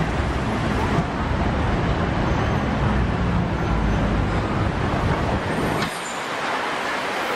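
Road traffic with a city bus's engine running close by: a steady low rumble over the hiss of passing cars. The low rumble drops away suddenly near the end.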